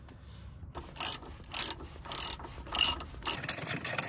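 Hand ratchet wrench clicking in short bursts, about six strokes roughly half a second apart, as a nut on the front steering tie rod is loosened for tie rod replacement.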